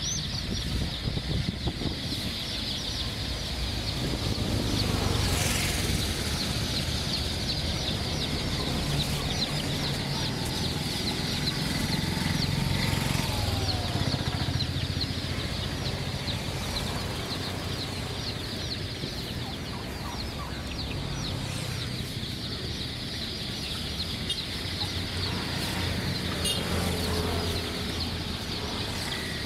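A large flock of baby chicks peeping without pause, a dense chorus of short, high cheeps, with a low rumble underneath.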